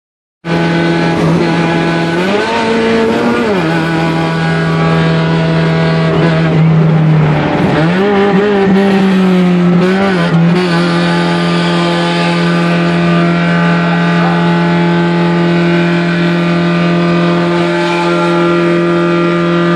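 Volkswagen Transporter van's engine working hard at motorway speed, heard from inside the cab. Its drone holds a steady pitch, rising and falling briefly twice, about two seconds in and again around eight seconds.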